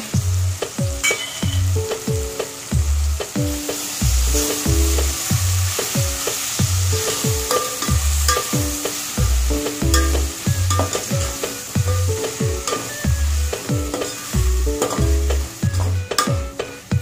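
Vegetables frying and sizzling in a metal pot while a metal spatula stirs them, under background music with a steady beat.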